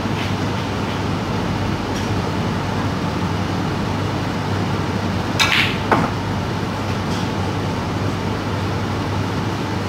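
A snooker shot about halfway through: the cue strikes the cue ball, then the cue ball clicks sharply against a red. A steady low hum runs throughout.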